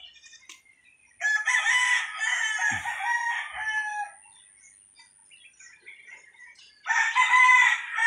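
A rooster crowing twice: one long crow of about three seconds starting a second in, and a second crow starting near the end.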